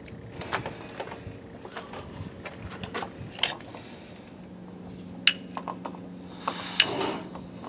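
MSR WindPro II canister gas stove being lit with a long utility lighter: a series of sharp clicks, then a soft whoosh and a steady gas hiss as the burner catches near the end.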